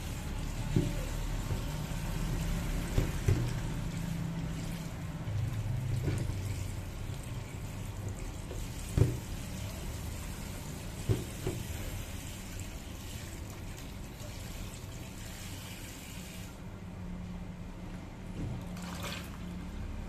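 Tap water running into a bowl of strawberries in a stainless steel sink while hands rub them clean, with a few sharp knocks. The hiss of the stream drops away about three-quarters of the way through as the tap is shut.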